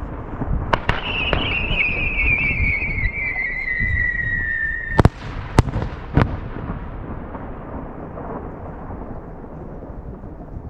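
Aerial fireworks shells bursting in loud cracks, four in all, over a continuous rolling rumble, with a high whistle from a whistling shell that slides slowly down in pitch for about four seconds and cuts off at a bang.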